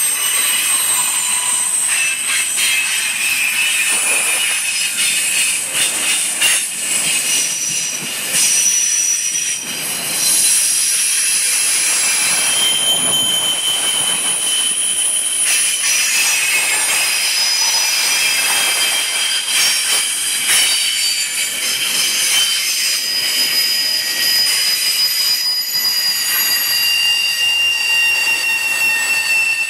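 Empty intermodal well cars of a freight train rolling past, with brake shoes and steel wheel flanges squealing against the rails in several high tones that come and go and shift in pitch, over the rolling noise of the wheels. The squeal comes from the train braking for a 20 mph curve ahead.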